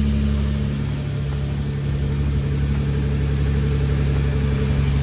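Car engine idling steadily, holding an even pitch without revving.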